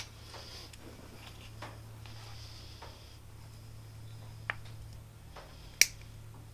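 A few light clicks and taps from small parts being handled, with one sharp, snap-like click near the end, over a steady low hum.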